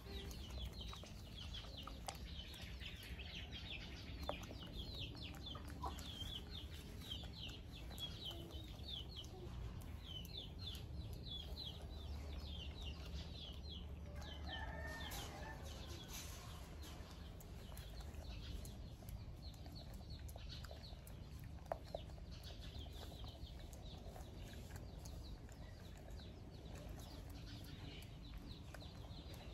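Chickens calling: runs of quick, short, falling high peeps, with a louder call about halfway through. A low rumble sits underneath.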